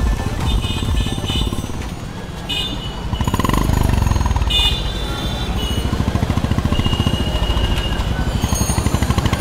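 Motorcycle engines running with a fast, even low thudding, growing louder about three seconds in as the bikes come close.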